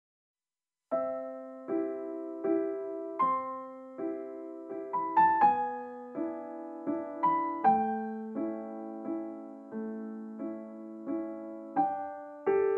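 Background piano music: a slow melody of single notes and chords, each struck note fading away, starting about a second in after silence.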